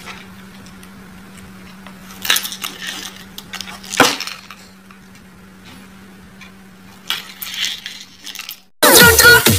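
A few light knocks and clicks as a cat paws and noses a small paper box on a wooden tabletop, the sharpest about four seconds in, over a steady low hum. Loud music cuts in near the end.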